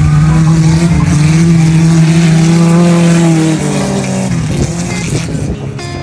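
Suzuki Vitara engine held at steady high revs, the pitch nearly constant, then dropping away about four seconds in.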